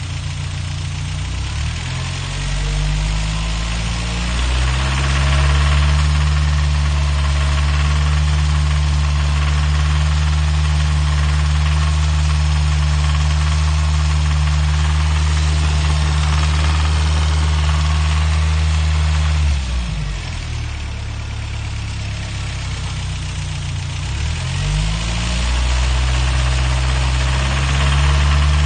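Toyota 22RE 2.4-litre four-cylinder engine running with a clacking, knocking sound, which the owner doesn't think is loud valves. Its speed rises twice in the first few seconds, dips about twenty seconds in, and comes back up about five seconds later.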